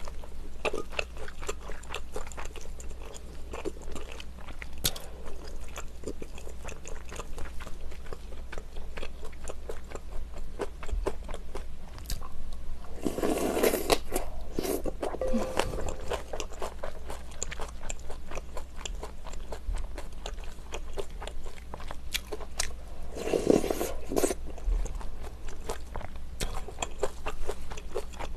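Close-miked eating of rice cake soup and kimchi: steady wet chewing and crunching with many small mouth clicks, broken twice by a louder, longer burst of sound, about thirteen and twenty-three seconds in.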